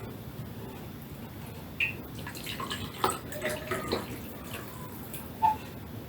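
Scattered light clinks and taps of a spoon against a plate and bowl, with a few short bright plinks.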